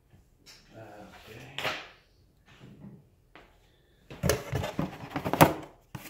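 Cardboard packaging being handled: an insert rustles and scrapes against a molded-pulp tray as it is lifted out of a box. The loudest part is a quick run of scraping and knocks in the last two seconds.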